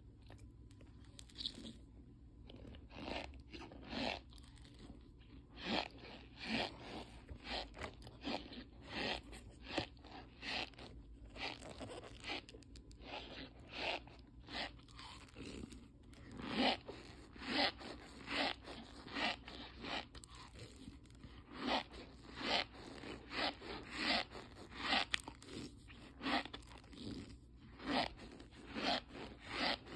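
Packed cornstarch crunching and squeaking as fingers press and squeeze it, in a long run of short crunches, one or two a second, that grows busier after the first few seconds.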